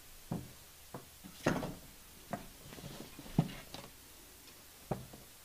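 A few irregular clicks and knocks, about six over five seconds, of a plastic draw ball being handled at a lectern close to the microphone.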